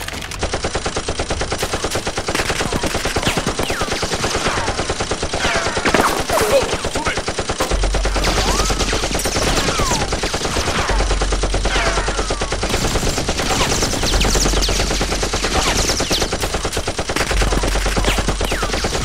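Sustained rapid automatic gunfire, many shots a second without a break: machine-gun sound effects laid over a Nerf dart battle, with a deep low rumble joining from about eight seconds in.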